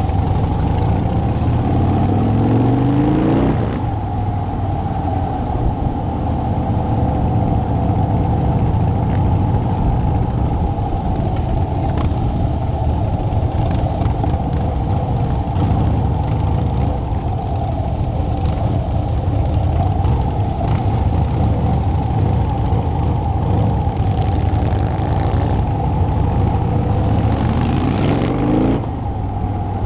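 Motorcycle engine running under way in a group ride, with a steady rush of wind noise. The revs climb as the bike accelerates in the first few seconds and again near the end.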